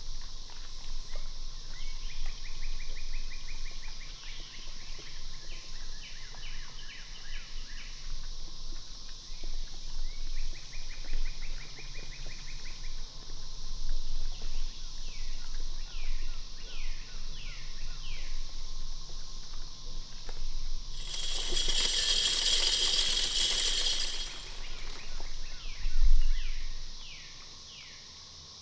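Steady insect chorus with repeated bird chirps and short trills. Near the end a loud high hiss lasts about three seconds, followed by a single low thump.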